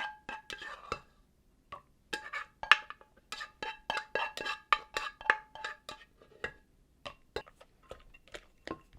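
A kitchen utensil knocking and clinking repeatedly against a ringing bowl, about two to three knocks a second, as the tomato sauce is worked in with the pounded chili, cilantro and green onion; the knocks thin out near the end.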